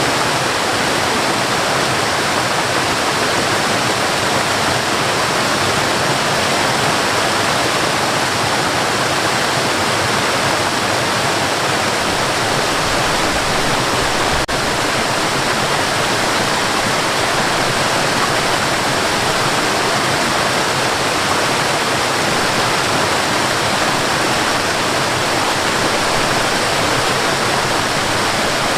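Waterfall: a steady, dense rush of falling water, with one faint click about halfway through.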